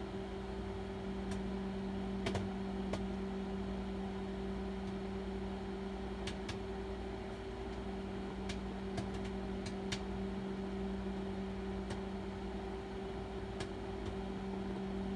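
Microwave oven running with a steady hum while a bag of microwave popcorn pops only now and then, about a dozen sharp pops spread out over the stretch: the popping is slowing, a sign the bag is nearly done.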